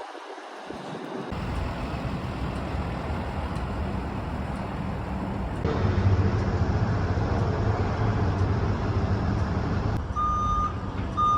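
Large vehicle engine and traffic noise, changing abruptly a few times, with a backup alarm starting to beep in even pulses near the end.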